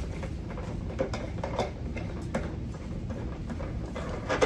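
Scattered light knocks and clicks at an uneven pace, from couch parts and legs being handled and fitted during assembly.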